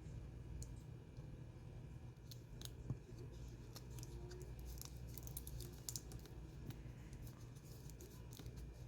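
Light clicking and scraping of small hand tools working on a mobile phone's parts: a quick run of sharp ticks from about two seconds in until near the end, over a low steady hum.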